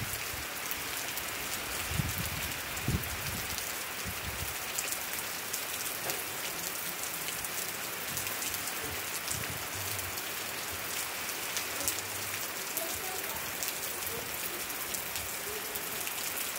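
Steady rain falling on garden plants and bare soil: an even hiss dotted with the patter of single drops, with a few low thuds about two and three seconds in.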